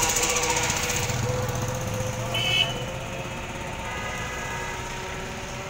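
City street traffic, with motorcycle and car engines passing close by. A short horn beep sounds about two and a half seconds in.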